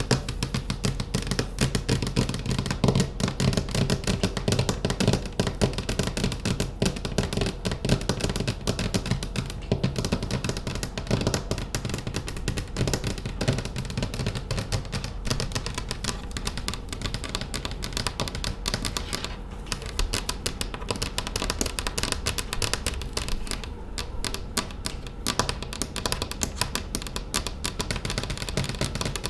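Fast, continuous fingernail tapping: many crisp clicks a second, like a typewriter.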